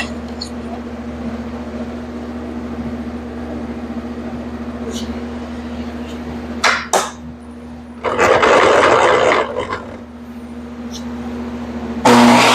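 Steady hum with a few sharp clicks and knocks as a wooden jig is handled on a table-saw fence, and a loud rushing noise lasting about a second and a half past the middle. Near the end a DeWalt contractor table saw switches on suddenly and runs loudly.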